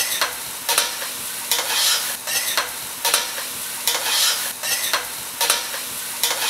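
Chopped vegetables frying gently in olive oil in a stainless steel saucepan: a steady sizzle, with a metal spoon scraping across the bottom of the pan about once or twice a second as they are stirred.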